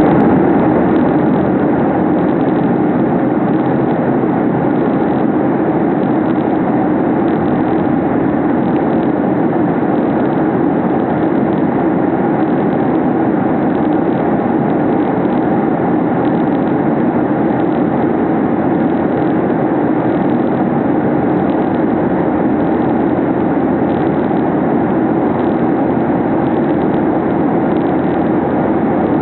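Airliner cabin noise in flight: a steady rushing of jet engines and airflow heard from inside the passenger cabin, even in level throughout.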